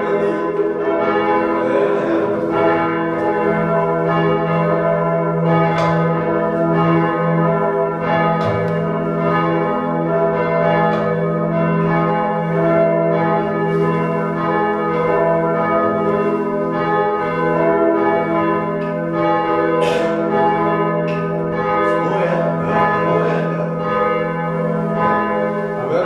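Three church bells swung by hand on ropes, ringing together in a continuous overlapping peal, with fresh clapper strikes every second or two over a lingering hum. A sharp strike stands out about twenty seconds in.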